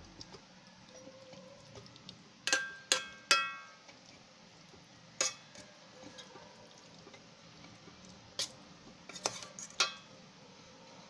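A metal spoon stirring a soupy stew in a rice cooker's metal inner pot, clinking against the side. There are three quick ringing clinks about two and a half seconds in, then single clinks later on.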